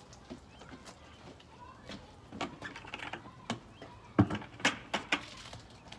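Hand car washing: a long-handled wash brush scrubbing an SUV's side, then a red plastic bucket being handled, with irregular clacks and knocks. The loudest knocks come just after four seconds and around five seconds.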